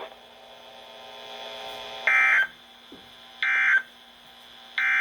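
Three short bursts of EAS/SAME digital data tones from a weather radio speaker, each about a third of a second long and a little over a second apart, with faint radio hiss between them. This is the end-of-message (NNNN) code sent three times, marking the end of the severe thunderstorm warning broadcast.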